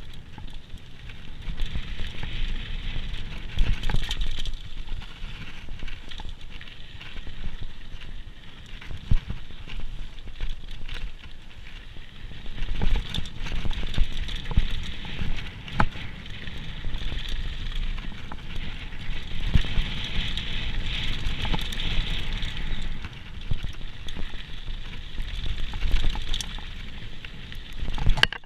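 Downhill mountain bike riding a rough bike-park trail: tyres crunching over dirt and gravel with frequent irregular rattles and knocks from the bike over bumps, and wind rumbling on the helmet camera's microphone.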